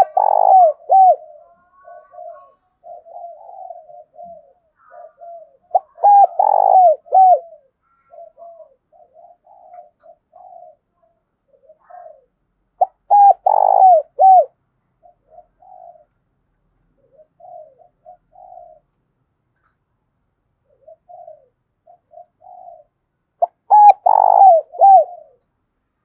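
Spotted dove cooing: four loud phrases of several quick, falling notes each, some seconds apart, with softer short coos in between.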